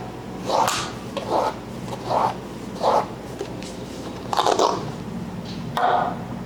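Massage handling sounds: about six short rubbing or scraping strokes, irregularly spaced, over a faint steady hum.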